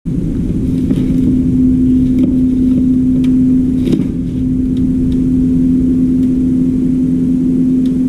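A steady low machine hum holding one pitch, with a few light clicks of a plastic control box being handled.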